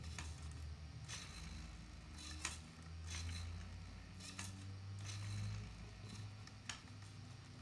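Radio-controlled model tractor's small electric drive humming low and steady, with scattered light plastic clicks from its mechanism as the mounted plough shifts.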